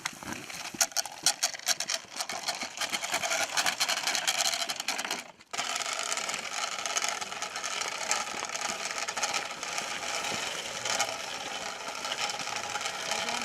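Dense rattling and crackling noise, full of quick clicks, which breaks off abruptly about five seconds in and resumes at once as a steadier rattle.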